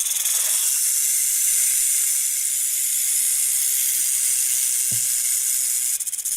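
Rattlesnake sound effect: a steady, dry, high-pitched rattling hiss.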